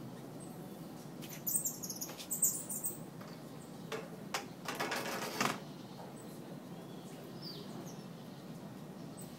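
Rustling and knocking of a bunch of bananas being hung on a monkey feeder among tree branches, in short bursts from about one and a half to five and a half seconds in.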